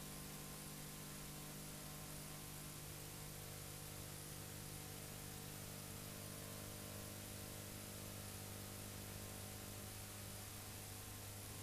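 Faint, steady hiss with a low electrical hum and its overtones: the blank audio track of a VHS tape playing back, with no programme sound on it.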